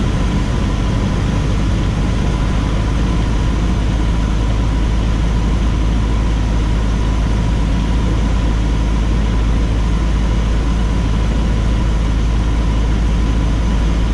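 The 1969 Cessna 150J's four-cylinder Continental O-200 engine and propeller droning steadily, heard from inside the cabin, with a thin steady whine above the drone.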